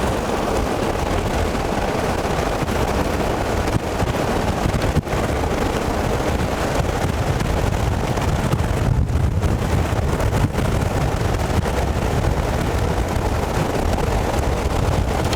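Strong storm wind buffeting the microphone: a continuous, loud, uneven roar, heaviest in the low rumble, with a few small knocks.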